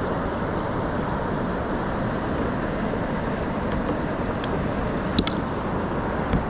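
Steady rushing of river water, with a few sharp clicks toward the end.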